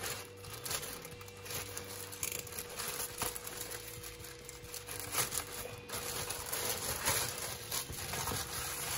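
Plastic courier mailer bag crinkling and rustling in irregular crackles as it is slit with a box cutter and a bubble-wrapped package is pulled out of it.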